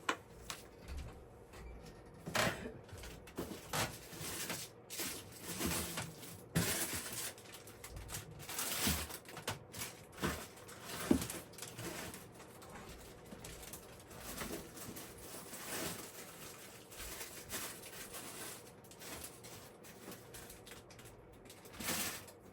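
Handling and rummaging through craft supplies and silicone molds: scattered light taps, clicks and rustles of plastic and silicone being picked up and set down on a table.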